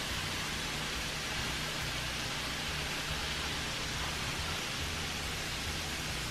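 Diced potatoes frying in a skillet, a steady sizzle, over a low steady hum.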